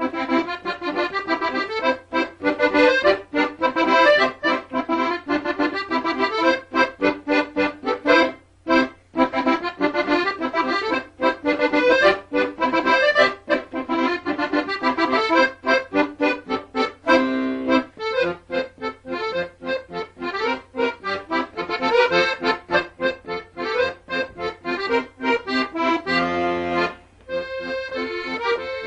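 Lively instrumental background music with quick, rapidly changing notes. It starts abruptly, with short breaks about eight and a half seconds in and again near the end.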